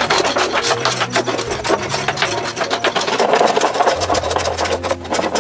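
Hand-held blocks rubbed back and forth over the surface of a palm-wood log hull, a fast run of dry scraping strokes as the wood is smoothed by hand.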